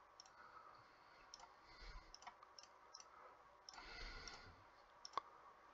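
Faint computer mouse clicks at an irregular pace as letters are picked one by one on an on-screen keyboard, the sharpest click a little before the end.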